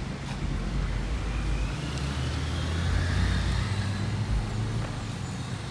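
Road traffic: a motor vehicle's steady low engine drone with road noise.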